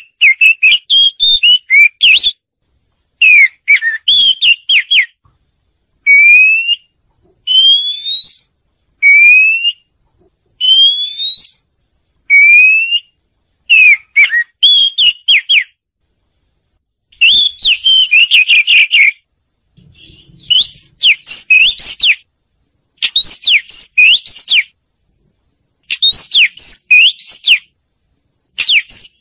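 Oriental magpie-robin singing: loud, clear whistled phrases with short silent gaps between them. Some phrases are single rising whistles; others, from about halfway, are rapid warbled notes sweeping up and down.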